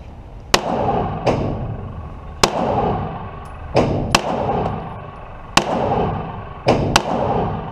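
Eight gunshots fired at irregular intervals, some in quick pairs, each followed by a ringing echo tail.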